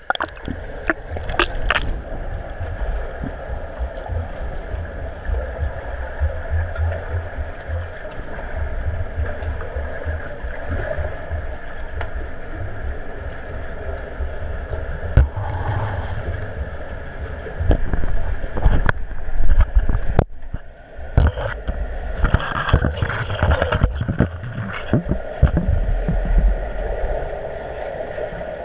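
Underwater sound of a swimming pool picked up through an action camera's waterproof housing: a steady hum over a low, uneven rumble of water moving against the housing. Short bursts of bubbling break in about a second in, near the middle, and again later.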